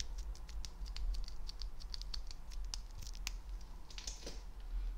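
Crisp crackles and clicks of a small wrapper handled by fingers right at the microphone: many quick, sharp ticks. About four seconds in comes a brief rustle, as of a plastic snack bag.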